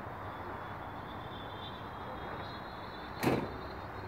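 A brief sharp whoosh about three seconds in from the Virage F5B electric hotliner making a fast pass, over a faint, slightly rising high whine.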